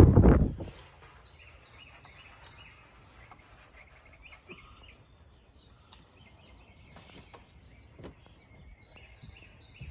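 Outdoor ambience with small birds chirping repeatedly in the background, and a few faint taps scattered through it.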